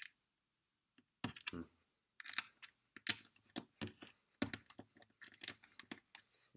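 LEGO pieces clicking and clattering as they are handled and pressed onto a baseplate: a rapid, uneven run of sharp little clicks, growing busier about two seconds in.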